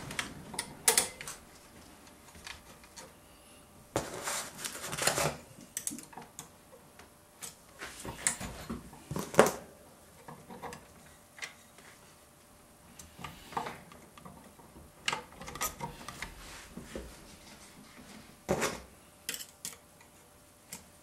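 Metal parts of a Remington Model 740 Woodsmaster's action clicking and scraping as its stiff recoil spring and rod are worked into place by hand. Irregular small clicks and short scrapes, with a louder knock about nine seconds in.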